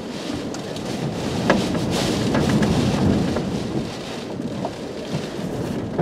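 Hurricane winds rushing and driving rain against a vehicle, with a gust swelling louder about a second and a half in and easing after about four seconds; a few sharp raindrop hits stand out.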